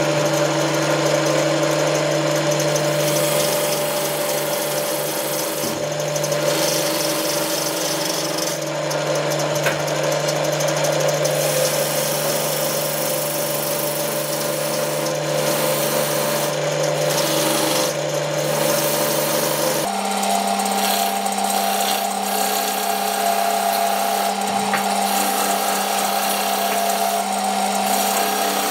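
JET JWL-1443 wood lathe running with a steady motor whine while a steel turning tool cuts into the spinning silverberry blank, giving a constant scraping hiss. About two-thirds of the way through, the motor's whine steps up to a higher pitch and holds there.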